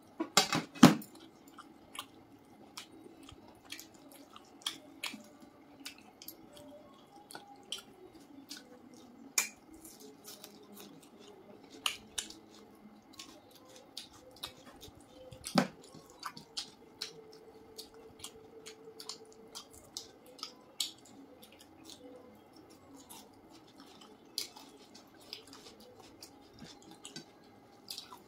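Eating by hand: mouth chewing and smacking, and fingers squishing rice and curry, heard as many small scattered clicks. There is a louder knock about a second in and another a little past the middle.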